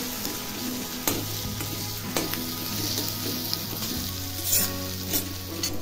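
Vangyache bharit (mashed roasted eggplant and onion) sizzling in oil in a kadhai while a metal spoon stirs and scrapes it. The spoon clicks against the pan now and then.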